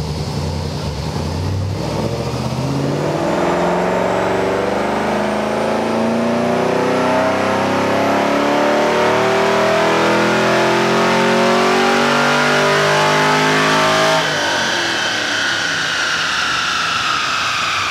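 Car engine making a full-throttle pull on a chassis dyno, the revs climbing steadily for about twelve seconds. It then lifts off suddenly and the revs wind back down.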